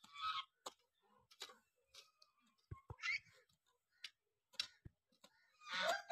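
Short-handled hoes chopping into grassy soil: irregular sharp knocks. Hens cluck now and then, and a rooster starts to crow near the end.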